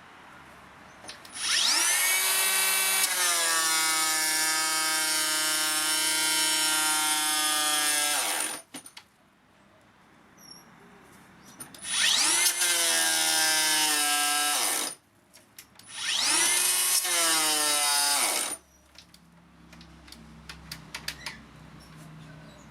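Makita 40V XGT cordless planer running in three bursts: one of about seven seconds, then two shorter ones of about three seconds. Each starts with a rising whine, sags a little in pitch while planing pine at 4 mm depth, and winds down. It is running on the last of a 2.5 Ah battery's charge.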